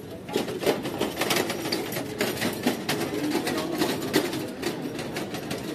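Rapid, irregular clicking and clattering over the steady murmur of a busy street.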